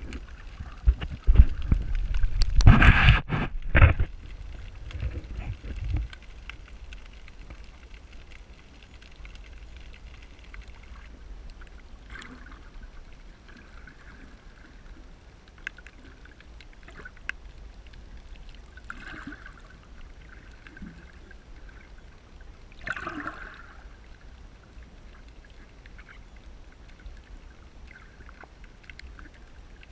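Water splashing and sloshing close to the microphone for the first few seconds, then quieter gurgling water with a few soft swells and faint scattered clicks.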